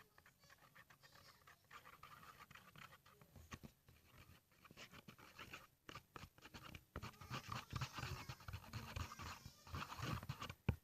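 A stirrer scraping and stirring glue and green food colouring in a plastic container: quick, irregular strokes, busier and louder in the second half.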